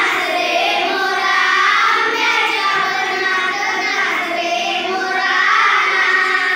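A group of children singing together in chorus, repeating a line of a Marathi song after their teacher.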